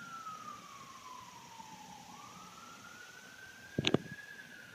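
An emergency-vehicle siren wailing: one tone sliding slowly down, back up and starting down again. A single sharp click or knock sounds just before the end.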